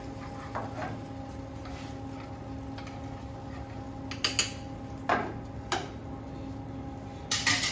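Sharp metallic clinks and knocks of a spoon and a metal frying pan on a gas range: one about four seconds in, two more around five to six seconds, and a cluster near the end. Under them runs the steady hum of commercial kitchen ventilation.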